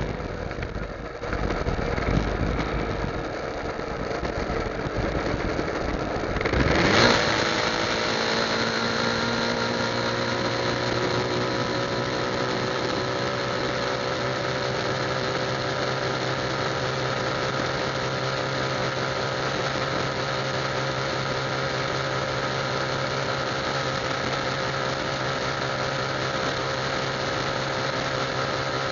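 Motorcycle engine running at highway speed. It begins as a rough rumble, swells loudly about seven seconds in, then settles into a steady drone whose pitch climbs slowly as the bike accelerates.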